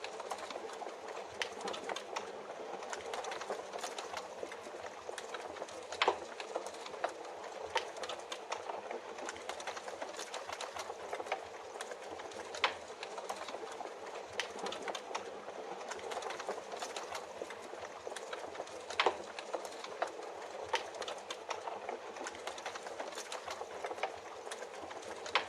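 Steady rain hiss with a wood fire crackling: many small crackles and a louder pop every six seconds or so.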